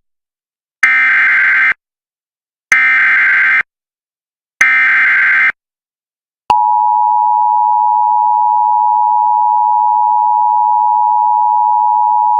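Emergency Alert System header: three short bursts of screeching digital data tones, about two seconds apart, then the steady two-tone EAS attention signal starting about six and a half seconds in, marking the start of an emergency alert.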